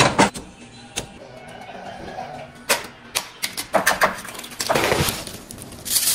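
Wooden spatula knocking and scraping in a nonstick frying pan as ground meat and vegetables are stirred: a string of sharp, irregular clacks. Near the end a crackling rush as something crisp is crushed by hand over the pan.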